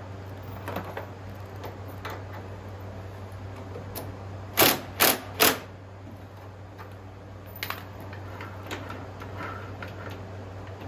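Sharp mechanical clicks and knocks, with three loud clacks about half a second apart near the middle, over a steady low hum.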